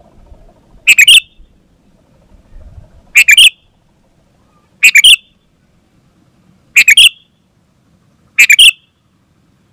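Sooty-headed bulbul (kutilang) calling vigorously: five short, loud chattering phrases, one about every two seconds.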